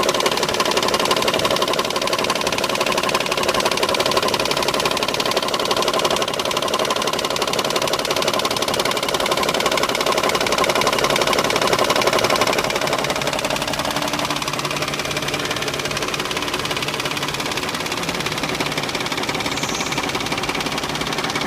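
Mazda Xedos 6 engine running with a fast, steady knocking clatter, a little quieter from about halfway through. The owner suspects the camshaft gears and the hydraulic tensioner as the source of the knock.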